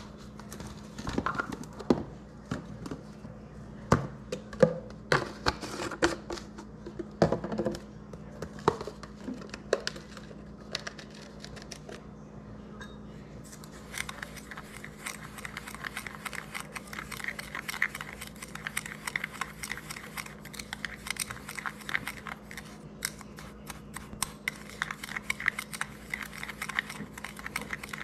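Kitchen food-prep handling: scattered knocks and clinks, then from about halfway a steady run of rapid, scratchy clicks and rustling, typical of working a dry seasoning rub. A steady low electrical hum sounds underneath.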